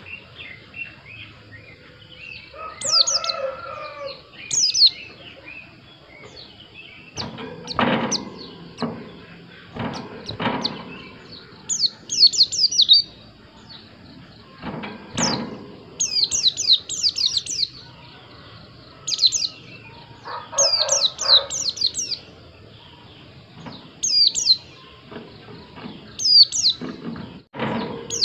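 White-eye (pleci) singing: short bursts of quick, high, rapidly repeated chirping notes, coming in clusters every second or two. Lower warbled calls come in twice, and a few dull thumps sound near the middle.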